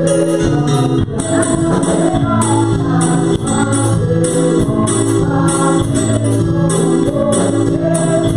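Live gospel song: a woman sings through a microphone over electronic keyboard accompaniment, with a steady percussion beat.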